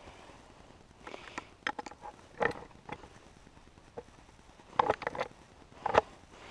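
Sharp metallic clinks and taps from tools and parts on a Spicer transmission case that is being worked apart, coming in scattered groups, each clink ringing briefly.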